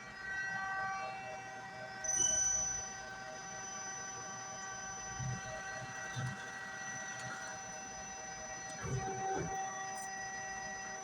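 Steady hum and whine of shop machinery, several tones held at once, with a brief louder burst about two seconds in and a few soft knocks.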